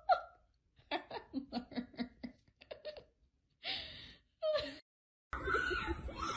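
A person giggling under their breath in a quick run of short bursts, then two breathy laughs. About five seconds in it stops, and a steady outdoor background starts.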